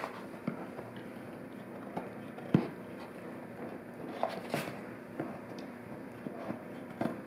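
Golden retriever chewing and tearing thin cereal-box cardboard: irregular crackles and crunches, the loudest about two and a half seconds in and a quick cluster near the middle.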